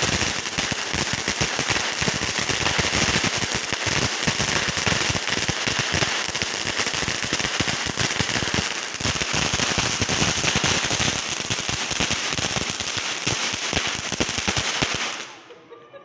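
Karpagaraja Sharp Shooter, a gun-shaped handheld firework, spraying sparks from its tip with a loud, dense crackling that stops abruptly about fifteen seconds in as it burns out.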